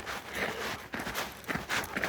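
Footsteps of a person walking along a woodland trail, a series of uneven scuffing steps.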